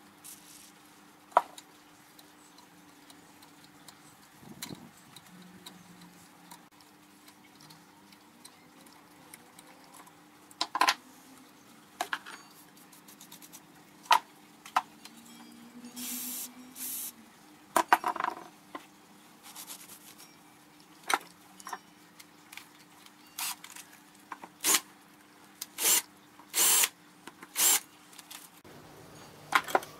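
Scattered clinks and knocks of metal tools and parts being handled on a workbench over a faint steady hum, with several short noisy bursts in the second half.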